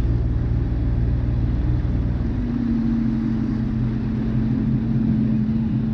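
Jet ski engine running steadily while cruising over calm water, with a low rumble; about two seconds in, its note shifts to a steady higher hum.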